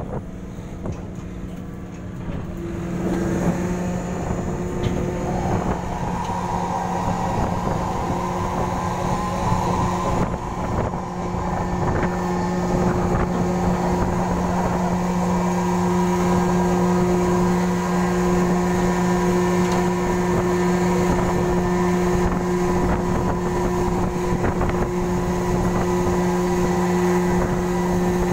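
A ship's engines running as the ship pulls away from the quay: a steady machine hum with a low drone and a higher tone above it. It grows louder about three seconds in and again around six seconds.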